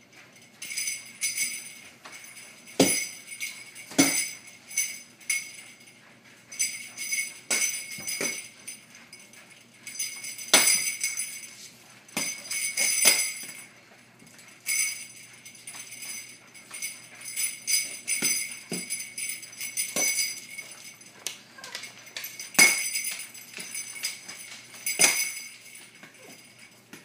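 Potty-training bells on a strap hanging from a door handle, jangling in irregular bursts as a Shiloh Shepherd puppy tugs and paws at them, with occasional low knocks. The ringing is the puppy's signal that she needs to go outside.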